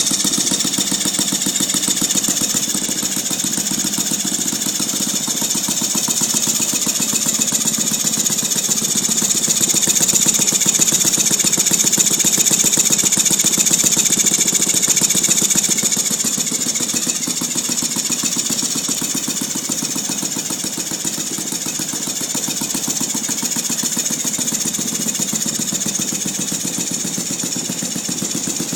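Saito FG-36 single-cylinder four-stroke gasoline model aircraft engine running steadily, with a fast, even pulse; it gets a little louder for several seconds near the middle. It is making a noise that the owner finds strange.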